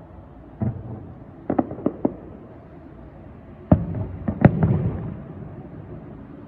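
Aerial fireworks shells bursting: a first bang, a quick run of four cracks, then a louder cluster of booms about halfway through, each trailing into a short rumble. Under them runs a steady background hum.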